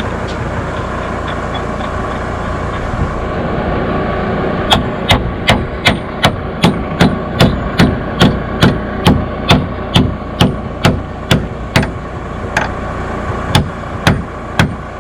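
Hammer driving a wedge anchor bolt, with a nut threaded on its end, into a hole drilled in a concrete slab: about twenty sharp blows at roughly two a second starting about five seconds in, then a few slower blows near the end. A steady engine-like hum runs underneath.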